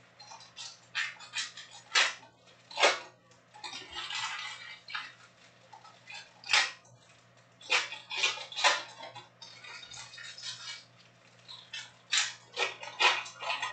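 Trading-card pack wrappers crinkling and tearing as packs are opened and the cards are handled: an irregular run of sharp rustles and crackles.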